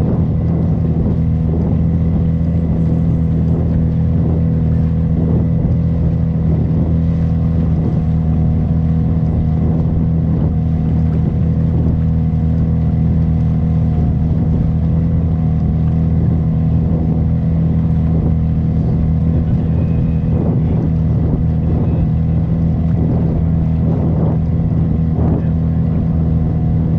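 Motor of a wooden pirogue running steadily under way, a constant low drone that holds the same pitch throughout.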